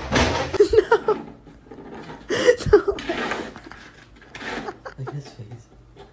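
A person laughing in short, rapid bursts, with brief exclaimed sounds like "ooop" and "oh".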